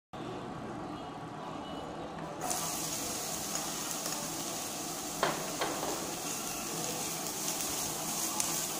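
Chopped onion sizzling in a hot nonstick frying pan, the steady hiss starting suddenly about two seconds in as the onion goes in. A couple of sharp spatula knocks against the pan come about halfway through and again near the end.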